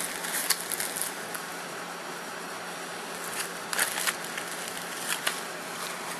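Steady hiss of a room air conditioner running, with a few light clicks and rustles of handling.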